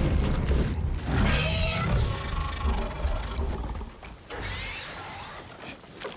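Dark, tense film score with a heavy low rumble, fading down over the first few seconds. Faint rising and falling glides follow, about two-thirds of the way through.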